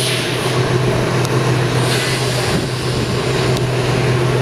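Steam tank locomotive 4160 taking on water from a water tower's hose: a steady rushing of water into the tank with a low hum under it.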